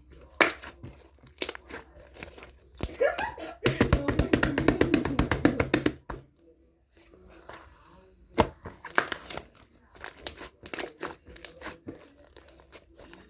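Crinkling and tearing handling noises with scattered clicks, and a fast run of clicks lasting about two seconds, starting about four seconds in.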